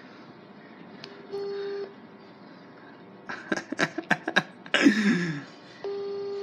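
WhatsApp outgoing-call ringback tone from a phone's speaker: a short steady beep twice, about four and a half seconds apart, as the call rings unanswered. Between the beeps comes a quick run of clicks and then a brief low vocal sound sliding down in pitch.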